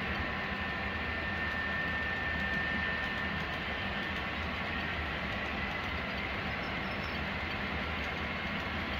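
Model railroad freight train rolling steadily along the track: an even rolling rumble of the cars' wheels on the rails, with a faint steady high tone.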